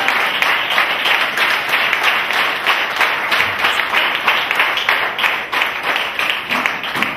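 Audience applauding, many people clapping steadily and densely.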